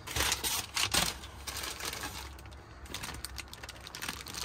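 Kraft-paper packing and a plastic parts bag rustling and crinkling as a hand digs through a cardboard box, loudest in the first second, then lighter, scattered crinkles.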